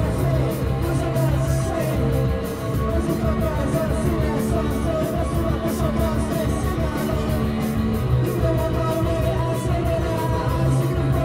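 Live rock band playing loud electric guitars, bass guitar and drums with a fast, steady drumbeat, and singing over it.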